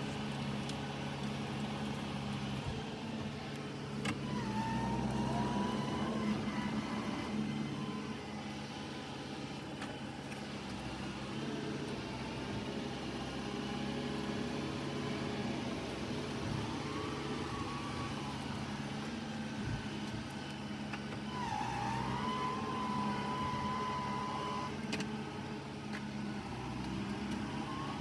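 Kioti tractor's diesel engine running steadily, with a thin higher whine that rises in briefly a few times, longest about three seconds near the end.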